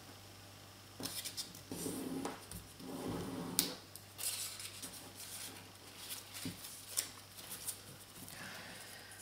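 Origami paper being folded and creased by hand: faint rustling and crinkling in irregular bursts with small clicks, including a sharper click about three and a half seconds in, then quieter handling in the last few seconds.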